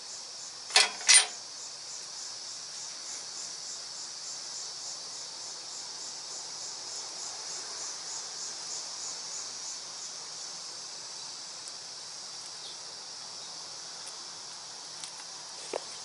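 Crickets chirping in a steady, even pulsing rhythm, about two to three chirps a second, high-pitched. About a second in, two sharp snaps cut through it.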